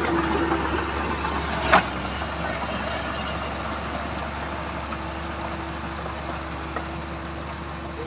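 Diesel engine of a Komatsu D31P crawler bulldozer running steadily as it drives forward pushing soil, growing a little quieter as it moves away. A single sharp knock sounds about two seconds in.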